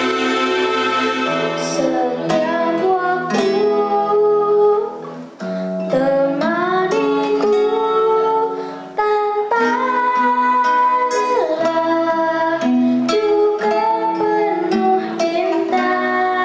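A young girl singing a slow song over plucked guitar accompaniment, in phrases with short breaks between them.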